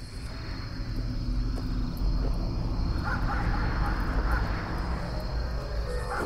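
Dark ambient film soundscape: a deep steady rumble with a thin high steady tone over it, and a few faint short chirps about halfway through.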